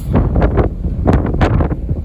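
Wind buffeting the microphone aboard a ferry in irregular gusts, over a steady low rumble from the moving ship.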